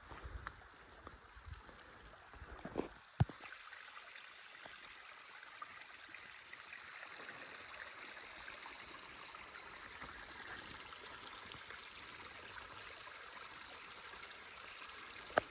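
Rain-fed desert creek flowing steadily, running higher than usual after rain. A few thumps in the first three seconds and a sharp click near the end.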